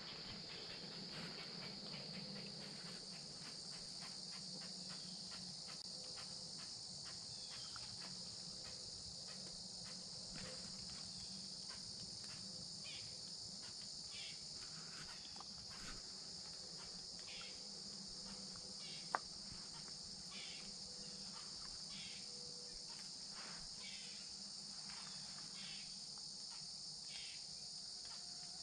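Faint, steady chorus of insects, a continuous high-pitched buzzing, with short chirps coming about once a second in the second half. A single sharp click comes about two-thirds of the way through.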